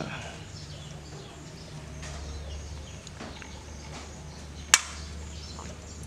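A gasket being handled and set onto the cylinder head of a Honda GX160 engine, with one sharp click about three-quarters of the way through, over a low steady hum.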